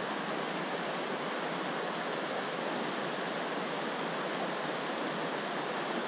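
Steady rushing of a clear stream running over a stony riffle.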